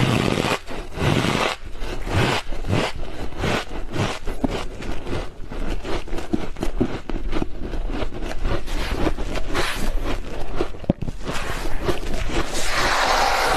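Freezer frost being chewed close to the microphone: rapid, irregular squeaky crunches.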